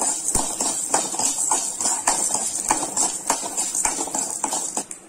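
Steel spoon scraping and knocking against a kadai while stirring roasting lentils, dried red chillies, garlic and coconut, with a regular knock roughly every half second or so that stops near the end.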